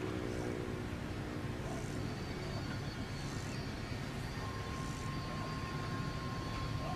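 Diesel freight locomotive approaching, its engine a steady low rumble. A thin, steady tone joins about halfway through.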